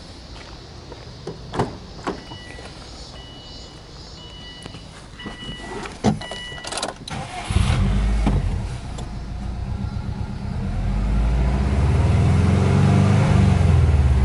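Subaru Impreza WRX's turbocharged flat-four engine starts about halfway through and runs at a fast idle, then is revved to about 3,000 rpm and held before dropping back near the end. Before the start there are a few clicks and knocks and a repeating electronic warning chime.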